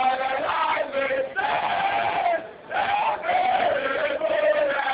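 A group of young men chanting a song together in unison, in long held notes, with a short break about halfway through.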